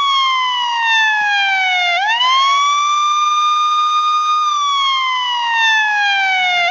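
Police siren wailing in a slow cycle: the pitch holds high, slides slowly down over about two seconds, then sweeps quickly back up about two seconds in, holds again, and starts another slow fall near the end.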